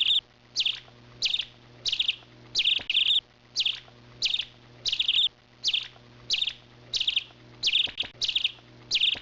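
A small bird calling over and over: a short, high chirp repeated evenly about every two-thirds of a second.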